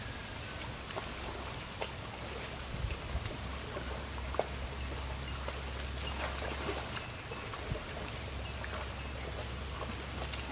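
Quiet outdoor ambience around water buffaloes wallowing in muddy water: faint scattered splashes and clicks over a steady low rumble, with a thin high whine held steady throughout.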